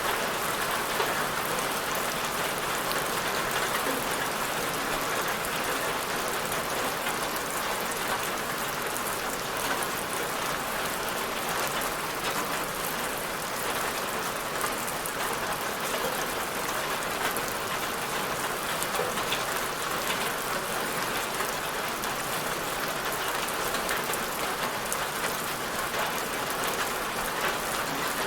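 Steady rain falling on a surface, an even hiss with fine drop patter, unchanging throughout.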